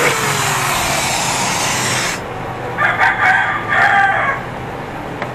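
Handheld electric drill running as it bores a bolt hole through a motorcycle's front fender, its motor pitch falling, then cutting off suddenly about two seconds in. About half a second later a rooster crows once, for about a second and a half.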